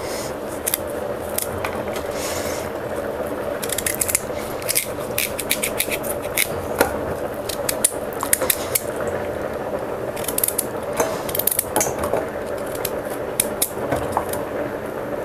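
Kitchen knife peeling and cutting a raw kohlrabi by hand: irregular short cutting and scraping clicks over a steady background hum.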